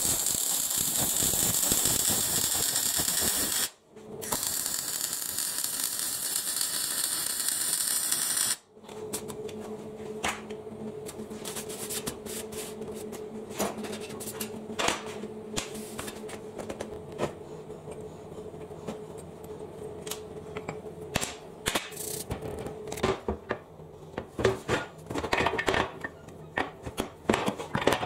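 Electric arc welding on a steel box-section beam: a steady, loud hiss in two runs of about four seconds each with a short break between, stopping about nine seconds in. After that, a steady low hum with scattered light metal knocks and clicks as steel parts are handled, more frequent near the end.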